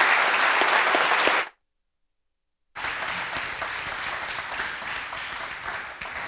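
Audience applauding. The clapping cuts off abruptly about a second and a half in, and after just over a second of dead silence it comes back a little quieter.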